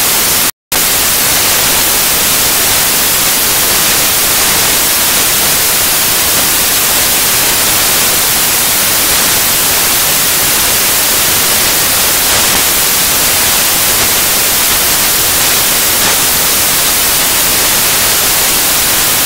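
Loud, steady static hiss, even across the whole range and strongest in the highs, with a brief dropout to silence just over half a second in.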